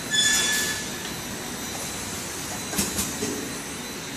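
Automatic labeling machine and its conveyor running: steady mechanical noise, with a brief high squeal right at the start and a single sharp click about three seconds in.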